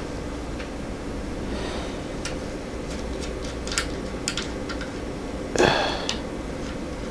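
Small, irregular clicks and taps of metal parts as a rebuildable dripping atomizer is handled on an ohm reader. A short, louder scrape comes about five and a half seconds in, over a steady low hum.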